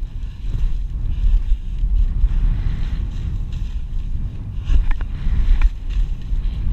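Wind buffeting the camera microphone over the hiss and scrape of a ride down through snow, with a couple of short, sharp scrapes about five seconds in.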